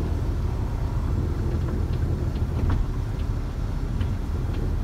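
Steady low rumble of a diesel truck's engine and road noise heard inside the cab while driving, with a few faint ticks over it.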